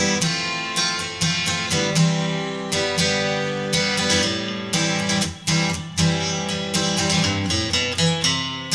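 Background music: plucked and strummed acoustic guitar playing a steady, rhythmic tune.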